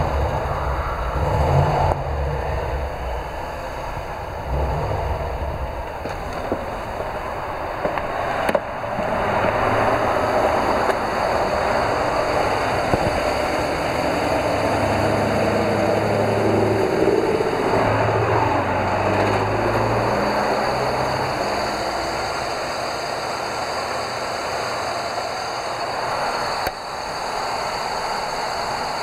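American school bus engine idling, with the valve-train tapping of hydraulic lifters that are not pumping up.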